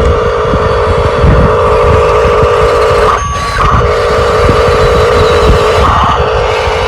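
Radio-controlled construction vehicle's electric motor and gearbox running with a steady whine, the sound shifting briefly about three seconds in.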